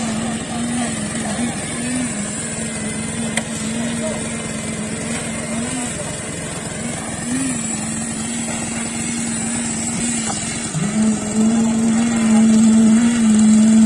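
Small engine of a concrete needle vibrator running steadily, its pitch wavering slightly as the needle works in wet concrete. About eleven seconds in the pitch dips briefly and comes back, and the engine is louder after that.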